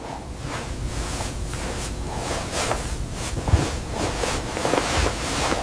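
Soft, irregular rustling over a steady hiss, several brushing swishes a second, one a little louder about three and a half seconds in.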